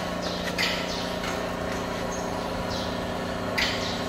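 Automatic stainless-steel fryer humming steadily as its motor slowly lifts the perforated frying basket out of the oil, with short hisses now and then.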